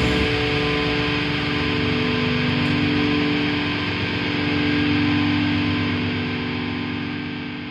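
Closing chord of a heavy metal song: a distorted electric guitar chord held and left to ring, slowly fading out over the last few seconds.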